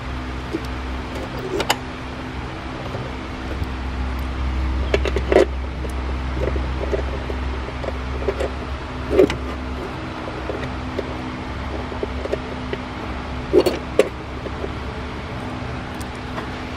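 Scattered light metallic clicks and knocks as a windshield wiper linkage and its mounting bolts are handled and set in place, over a steady background hum. The hum's low part fades about ten seconds in.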